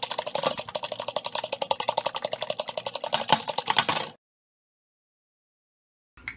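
Eggs being beaten with a fork or whisk in a bowl: rapid, even clicks, about eight to ten a second. They stop abruptly about four seconds in, followed by dead silence.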